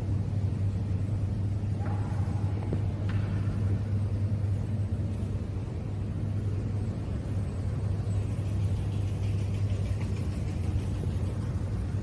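Steady low machine hum and rumble, unchanging throughout, with a couple of faint brief sounds about two and three seconds in.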